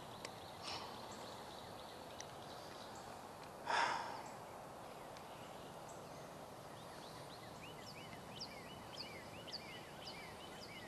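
Faint creekside ambience with one brief splash about four seconds in, then a small bird singing a quick run of short high chirps near the end.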